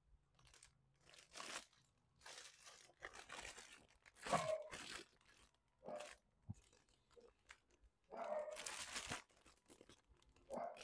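Clear plastic bags around model-kit sprues crinkling as they are handled, in irregular bursts, the loudest about four seconds in and again at about eight to nine seconds.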